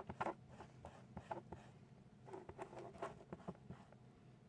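Paper rubbed in short, quick scratchy strokes over the blender's speed-selector switch contacts to polish off the dark burnt layer, in two bouts with a pause between.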